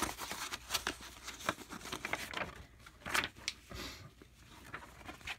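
Paper and packaging being handled and rustled, in an irregular run of crinkles and light clicks, the loudest about three seconds in.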